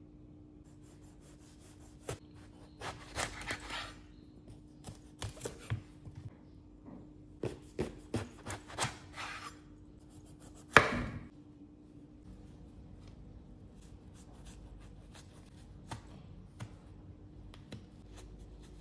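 Large kitchen knife cutting through a whole eggplant on a wooden cutting board: a series of short slicing and scraping strokes, then one loud knock a little before midway as the blade comes down on the board. Faint scattered ticks follow.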